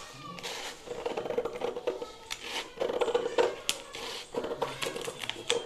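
Scissors snipping through a folded sheet of lined paper, a series of irregular sharp cuts with the paper rustling as it is turned.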